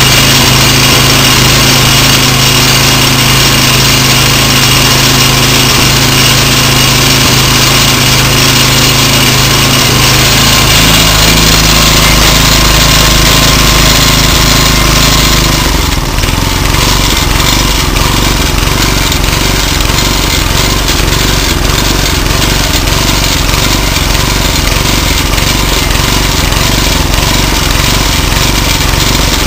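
The 5 hp single-cylinder engine of an MTD Yard Machines front-tine tiller running steadily and loudly, on its first run in ten years after a rebuild. Its note changes abruptly about sixteen seconds in.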